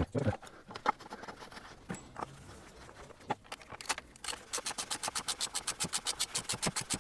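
A ratchet clicking rapidly and evenly, about nine clicks a second, as it screws the plastic oil filter housing cap down onto a BMW engine; before that, a few scattered knocks and clicks of the socket being fitted.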